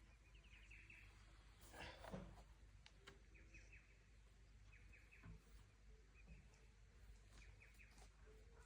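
Near silence with faint birdsong: a short run of quick, high chirps repeated every two seconds or so. A soft knock comes about two seconds in.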